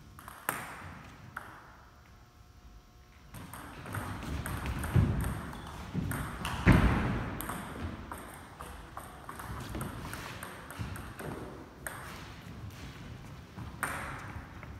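Table tennis rally: the celluloid ball clicking back and forth off the paddles and the table in quick succession, with a heavy thud about seven seconds in. A few single strikes come first, then a long run of hits from a few seconds in, and a few more near the end.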